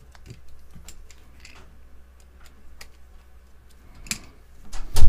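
Small metal hand tools clicking and tapping against one another as they are picked up from a workbench. There is a louder clack about four seconds in and a heavier knock with a deep thud right at the end.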